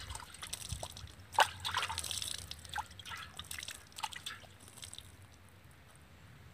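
Hands rinsing in a steel pot of water: irregular splashes and drips as water is scooped and runs off the fingers back into the pot, the loudest splash about a second and a half in, dying down after about five seconds.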